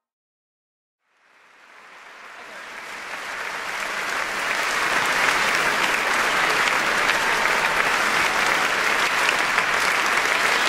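A large audience applauding. The clapping rises out of silence about a second in and grows to a steady level by about five seconds in.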